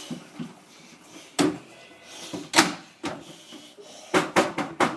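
Two separate knocks, the second louder, then about four seconds in a quick run of repeated knocks at roughly four a second.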